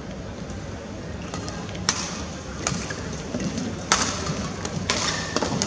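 Badminton rally: rackets striking a shuttlecock, about five sharp hits roughly a second apart, starting about two seconds in, over the steady background noise of the hall.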